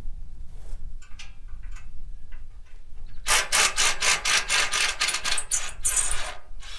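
Wind rumbling on the microphone with a few light knocks. About three seconds in comes a fast run of harsh rasping strokes, about five a second, lasting some three seconds, from a tool working on the bolted scrap rabbit-cage table.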